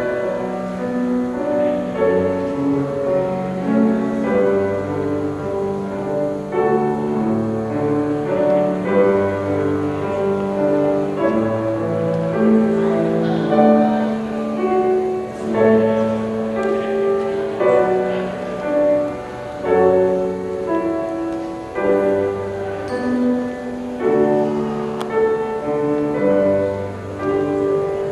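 Slow instrumental classical music with long held notes.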